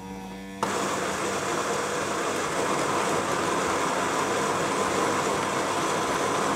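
Siemens EQ900 fully automatic coffee machine grinding beans for an espresso at its finest grind setting. After a brief faint hum, the grinder starts abruptly about half a second in and runs as a steady whir. The grinding noise is compact and well damped, typically quiet for Siemens.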